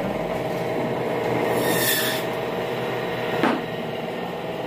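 Butchers' market din: a steady mechanical hum, a brief hiss about two seconds in, and a single sharp knock about three and a half seconds in.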